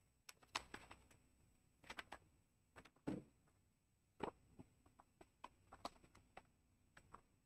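Near silence: quiet room tone in a meeting chamber, broken by faint, scattered clicks and rustles of small handling noises at the desks.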